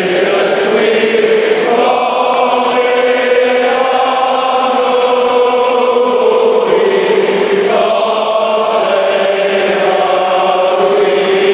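A stadium crowd of tens of thousands singing together in unison, slow long-held notes that echo around the stands.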